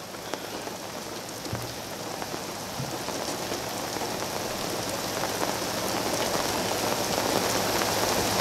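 Rain falling on the camp cooking gear, many separate drops ticking, getting steadily louder and heavier.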